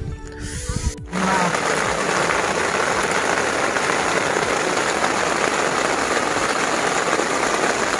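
Steady rain falling, starting suddenly about a second in after a few low knocks.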